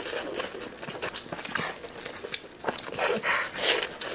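Close-miked eating sounds: wet chewing, smacking and breathy slurps as a sticky glazed chunk of meat is bitten into and pulled apart, in irregular bursts with small clicks.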